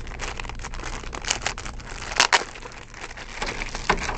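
Crinkling and crackling of packaging as the camcorder's bundled cables are handled and unwrapped, with a couple of sharper clicks about halfway through.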